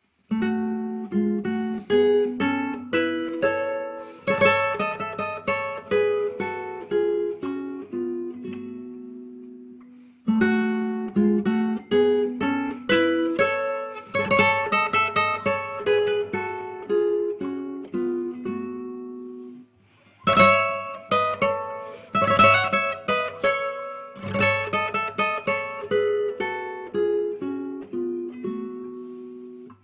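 Music on a solo plucked string instrument: a melody of picked notes in three phrases. Each phrase begins about ten seconds after the last and fades away.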